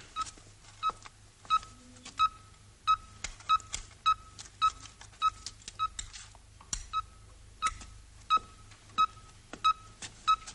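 Hospital electronic equipment beeping: a steady run of short, high, single-pitched beeps, about three a second, each starting with a sharp click.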